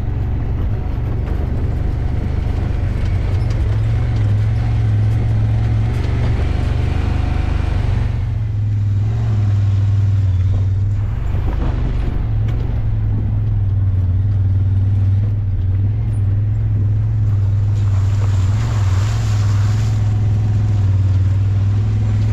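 A vehicle's engine running steadily under way, a low, even drone with road noise over it and a brief rush of louder noise near the end.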